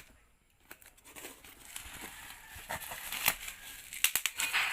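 Shipping package being opened by hand: plastic packaging crinkling and tearing, with scattered clicks and rustles that grow busier near the end.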